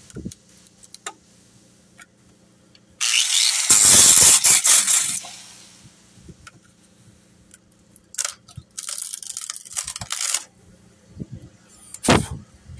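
Close, rough rubbing and scraping noises, the loudest lasting about two seconds starting some three seconds in, then shorter scrapes later on and a sharp knock near the end.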